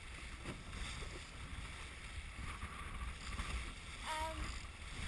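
Steady wind rumble on the microphone over water rushing along the hull of a sailboat under way. There is a brief voice a little after four seconds in.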